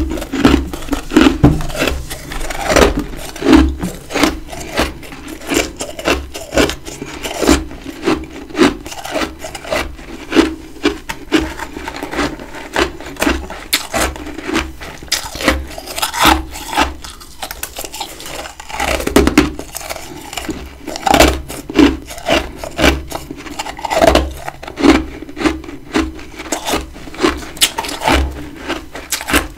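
Close-miked chewing of big chunks of humidifier freezer frost: dense, crackly crunching, with a louder chew about once a second.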